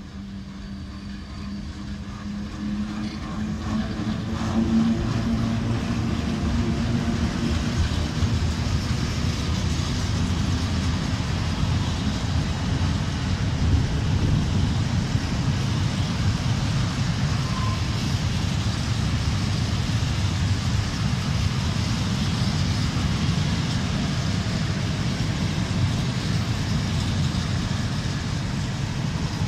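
ET22 electric freight locomotive approaching and passing with a steady hum, growing louder over the first five seconds. It is followed by a long train of coal gondola wagons rolling past: a continuous rumble with the clatter of wheels on the rails.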